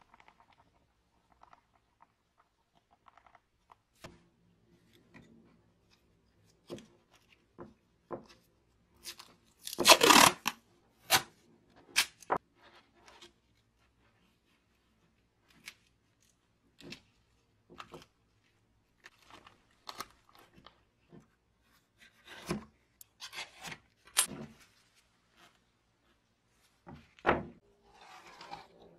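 Masking tape pulled off the roll and torn into short strips, with rustles and light taps as the strips are pressed onto a wooden saw handle. The longest, loudest tear comes about ten seconds in; the rest are brief, scattered tears and handling noises.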